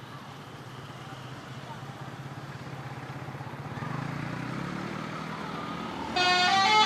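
A bus engine running and growing louder, its pitch rising midway. Then, about six seconds in, a multi-tone 'telolet' musical horn starts a stepped tune.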